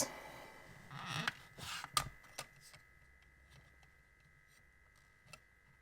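Handling noise from a camera flash: brief rustling, a sharp click about two seconds in, then a few faint ticks over a faint steady high tone.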